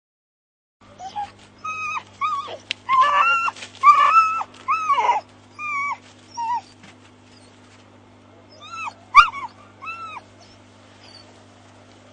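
English setter puppy whining and yelping in a run of short high cries, with a few more after a pause, over a steady low hum.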